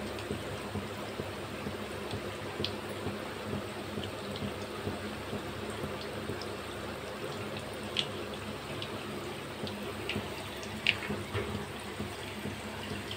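Hot oil in a kadhai sizzling steadily as egg keema pieces deep-fry, with sharp pops and crackles now and then, the loudest about eleven seconds in.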